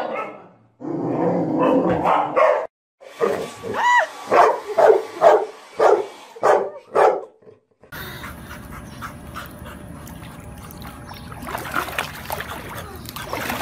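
A pit bull-type dog giving a run of short barks and yips, about two a second, one of them drawn out into a yelp that rises and falls. After that comes a steady wash of water noise.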